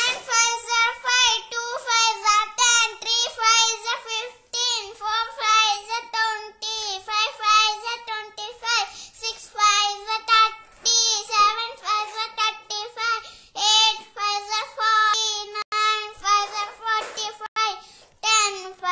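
A child's voice reciting the five times table in a high sing-song chant, one line after another.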